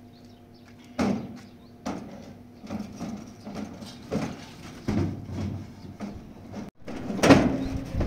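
Metal-framed drying trays knocking and clattering against each other and the steel bed of a pickup truck as they are loaded, a string of irregular knocks with the loudest, ringing clang near the end.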